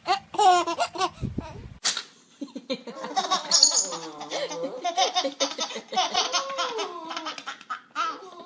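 A baby laughing in a string of short, choppy bursts, with a brief bump and click just before two seconds in.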